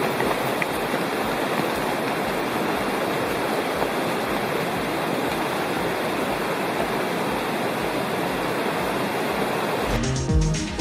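A mountain creek rushing steadily. Music with a beat cuts in abruptly near the end.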